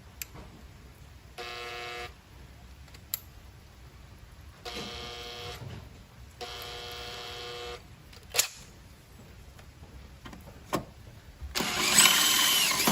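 Electric drill run in short bursts of a second or so, the bit working into the car's body metal, then a louder rough grinding burst near the end as the bit cuts through.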